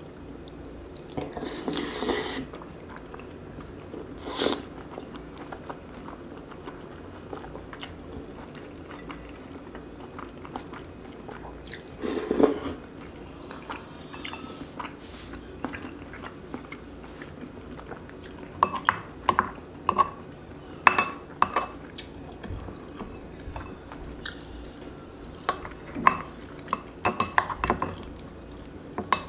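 Close-miked eating of braised pork and kimchi with rice: chewing, with cutlery scraping and clinking against the dishes. A few short scrapes come in the first half, then a run of sharp clinks in the second half.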